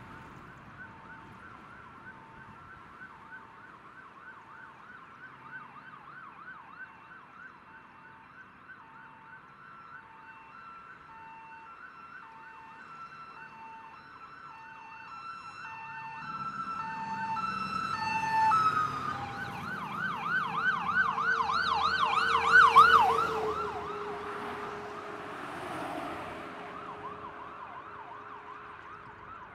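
Electronic sirens on responding hazmat and special-operations trucks: a fast warbling yelp over a two-note alternating tone. The sirens grow louder as a truck approaches, are loudest a little past the middle, then drop in pitch and fade as it passes.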